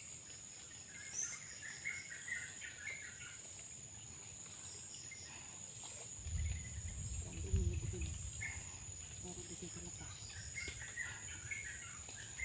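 Insect chorus shrilling steadily in two high, continuous bands, with scattered short chirps. A low rumble comes in about six seconds in.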